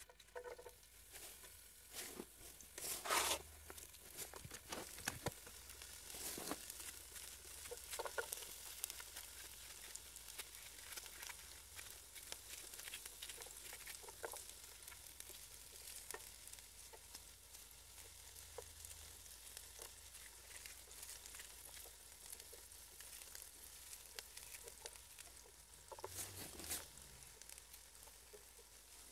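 Food sizzling and frying in a pan, a steady faint crackle. Louder scrapes or knocks come about three seconds in and again near the end.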